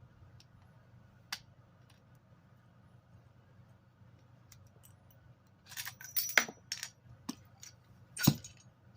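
Metal clinks and scrapes of hand tools working on a washing machine motor's cast housing: a single click about a second in, a quick cluster of clinks and scrapes around six seconds, and a sharp knock near the end.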